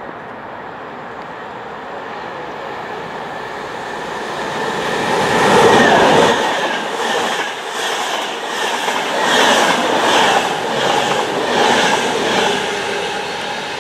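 Virgin Trains West Coast express passenger train passing through the station at speed. A rising rush peaks as the front arrives about six seconds in, then the wheels clatter rhythmically as the coaches go by.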